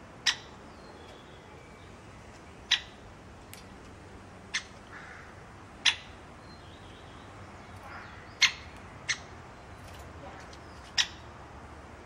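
Great spotted woodpecker giving its sharp single 'kik' call, about seven times at irregular intervals of one to two and a half seconds.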